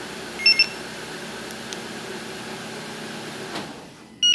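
Kia Sportage engine idling, then shut down by remote command from the newly installed StarLine A93 alarm. Two short electronic beeps come about half a second in, the idle dies away about three and a half seconds in, and a quick stepped beeping melody starts just before the end.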